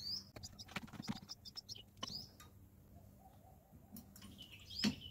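Birds chirping three times, short calls sliding in pitch, over light clicks and knocks of pipes and fittings being handled.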